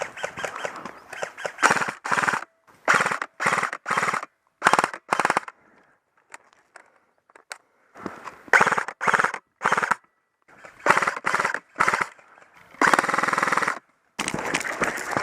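Airsoft electric rifle (an LCT RK104 AK replica) firing about a dozen short full-auto bursts, each a quick mechanical rattle of rapid shots. There is a lull of a couple of seconds mid-way and a longer burst near the end.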